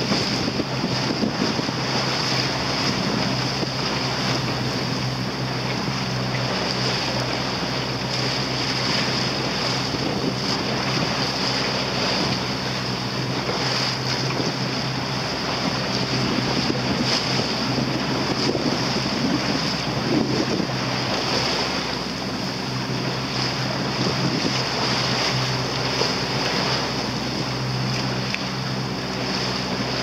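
Rigid inflatable boat under way, its engine running at a steady drone, with water rushing and splashing along the hull and wind buffeting the microphone.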